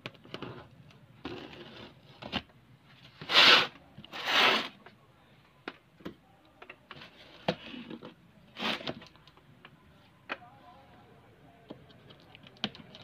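A cardboard parcel being handled and its packing tape picked at: scattered taps and crinkles, with two loud, short rough noises about three and four seconds in and a third near nine seconds.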